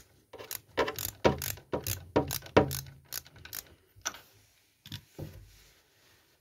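Ratchet wrench with a 16 mm spark plug socket clicking stroke after stroke as it loosens the spark plug of a 50 cc motorcycle engine. The clicks come about three a second, then thin out to a few scattered ones and stop about a second before the end.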